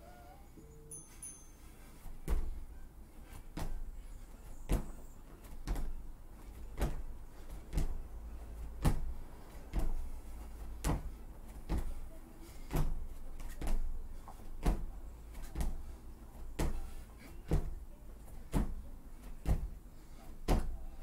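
Sneakered footfalls thudding on foam gym mats as a man steps and crosses his legs in a workout drill, starting about two seconds in and going on at roughly two steps a second, often in uneven pairs.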